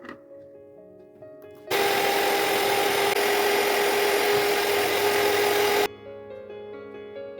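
A small electric kitchen appliance motor runs steadily for about four seconds, starting and stopping abruptly, over quiet background music.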